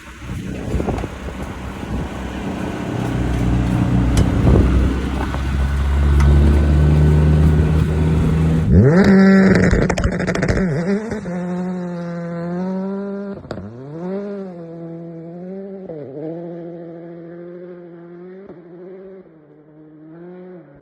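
Drift car engine on a snow course: at first close by under heavy wind noise, then from about nine seconds in heard clearly as the revs rise and fall again and again with throttle blips, getting quieter toward the end.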